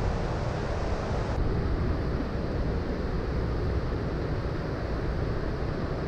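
Wind buffeting the microphone: a steady rushing noise with a heavy, uneven low rumble. The higher hiss dulls about a second and a half in.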